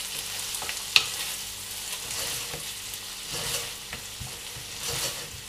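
Tuna and onion frying in olive oil in a pan, sizzling steadily, while a wooden spoon stirs and scrapes through it with short knocks against the pan, one sharper tap about a second in.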